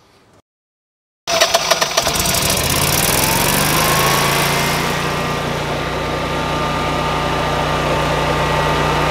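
A natural-gas Generac home standby generator's G-Force engine starts about a second in. It cranks briefly, catches, and runs up to a steady governed speed, with a whine that rises in pitch and then holds.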